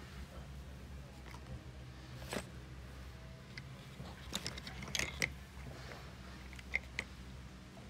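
Handling of a zippered hard-shell lens case and clip-on phone lens: scattered faint clicks and taps, one about two seconds in, a cluster a little past the middle and two more near the end, over a steady low hum.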